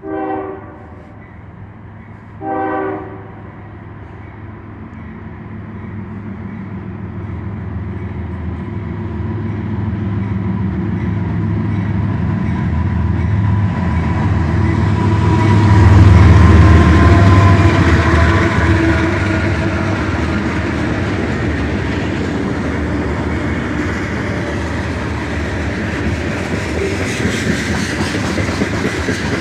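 CSX freight train passing: the lead diesel locomotive's horn sounds two short blasts. The locomotives' engine rumble then builds and peaks as they go by about halfway through, followed by the steady rolling noise and clickety-clack of covered hopper cars.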